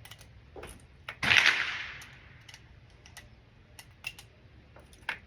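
A single pistol shot about a second in, with a tail that fades over about a second, and faint scattered clicks of handling before and after.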